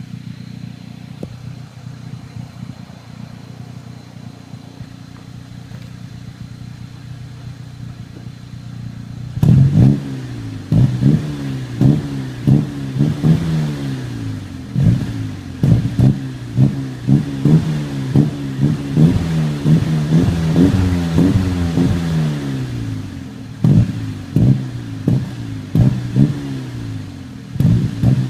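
Saab 9-3 2.0T turbocharged four-cylinder through a Magnaflow 14816 sport exhaust, idling steadily at first, then blipped over and over, about once a second, the revs falling back after each blip. Sharp cracks sit between the revs: exhaust pops on the overrun.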